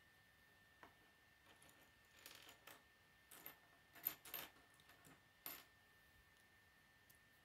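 Small plastic K'nex pieces clicking and tapping as they are handled, snapped together and set down on a wooden tabletop: a few scattered quiet clicks and rustles, the sharpest about four seconds in.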